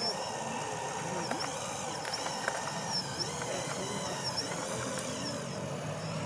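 Small electric motors of radio-controlled construction models whining, the pitch dipping and rising again several times, with small clicks and a brief louder noise about five seconds in.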